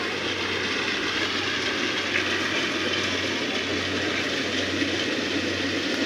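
Rice combine harvester's engine running steadily, a constant low hum under an even hiss.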